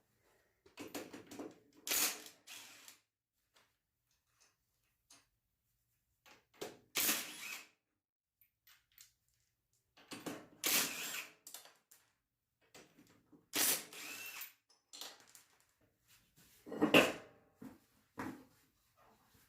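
Impact wrench run in several short bursts, about five in all with pauses between, loosening the wheel nuts to take a rear wheel off a lawn mower.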